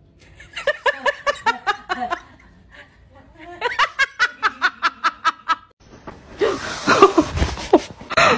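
A person laughing hard in rapid, evenly pulsed bursts, in two long bouts. A louder, noisier stretch follows near the end.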